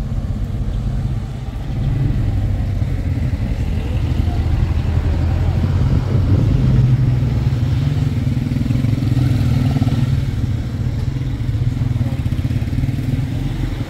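A motor vehicle's engine running steadily with a low drone, getting louder about two seconds in.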